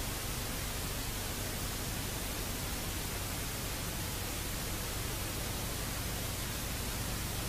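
Steady, even hiss like static, with a faint low hum beneath it; it starts and cuts off abruptly.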